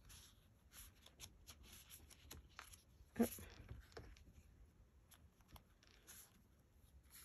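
Faint rustling and light clicks of paper sticker sheets and cardstock being leafed through and sorted by hand, with one louder brief sound about three seconds in.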